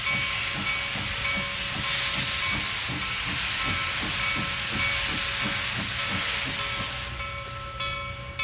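Reading T-1 class 4-8-4 steam locomotive 2102 starting away with its cylinder cocks open: a loud steady steam hiss over low exhaust chuffs about three a second. The hiss falls away about seven seconds in.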